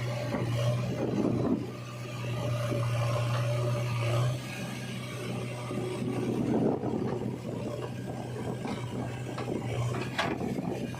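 A heavy diesel engine running steadily with a low hum, under irregular scraping and rubbing noises from the machinery working in mud.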